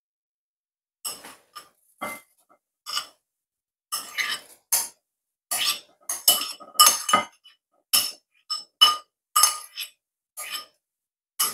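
A metal spoon clinking and scraping against a ceramic bowl in a string of about twenty irregular taps that ring briefly, with a busier run in the middle, as grated carrot is knocked out of the bowl.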